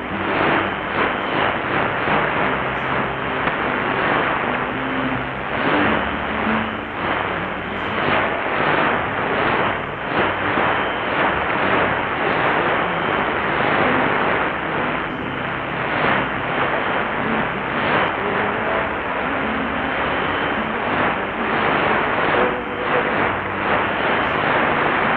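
Shortwave radio receiver tuned to a very weak AM broadcast, Radio Habana Cuba on 15140 kHz: steady hiss and static with a faint trace of music and talking under the noise.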